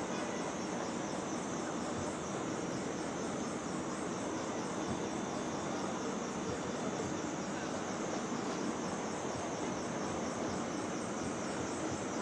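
Steady city street ambience: an even wash of traffic and crowd noise.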